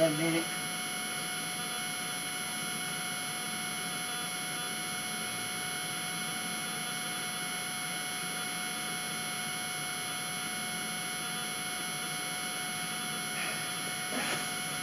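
Steady electrical hum with several fixed, high-pitched whining tones over a faint hiss, unchanging in level.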